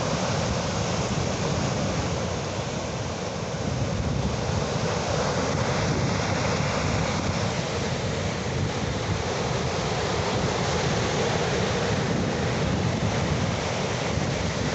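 Ocean waves washing on a shore, a steady rushing surf with a slight swell and ebb, and some wind on the microphone.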